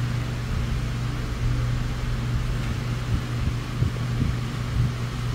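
Steady low hum and hiss of a room fan running, with a few faint clicks about three to four seconds in as test-lead clips are fastened onto a transistor's legs.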